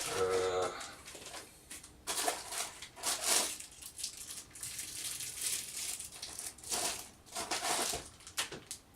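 Crinkling and rustling of plastic packaging, with handling noises, in irregular bursts, the loudest about two to three seconds in and again near the end. A brief pitched sound opens it.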